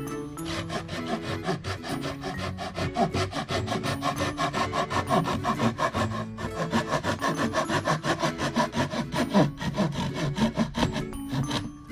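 Hand saw cutting through wood in quick, even back-and-forth strokes, pausing briefly about halfway and stopping near the end.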